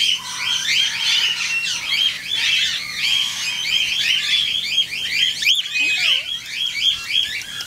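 A flock of cockatiels calling without a break: a dense chorus of short, shrill, rapidly repeated calls.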